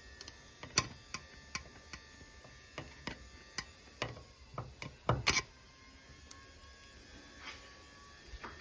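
Irregular sharp clicks and small knocks of tools and parts being handled as the removed differential valve head of a Potterton Performa 28 boiler is worked on, with the loudest knocks about a second in and a quick cluster about five seconds in.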